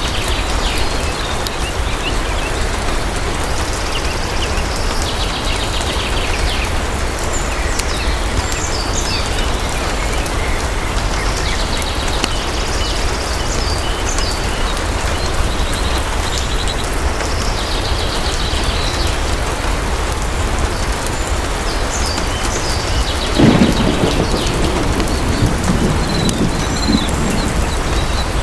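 Steady heavy rain falling, with a low roll of thunder that breaks in suddenly near the end and rumbles on for a few seconds.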